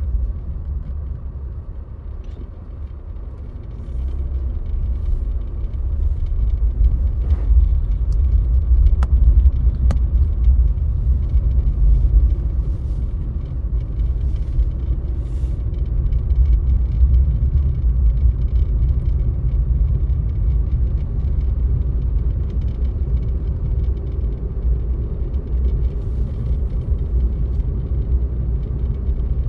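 A car driving on a snowy road, with a steady low rumble from road and engine. It eases off for a couple of seconds near the start, then picks up again.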